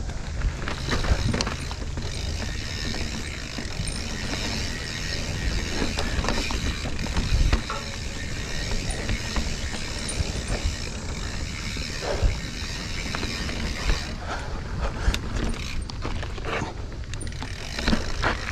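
Mountain bike ridden over a rough, rocky trail: the rear hub's freewheel ratchets as the rider coasts, with the bike rattling and scattered knocks over rocks and roots.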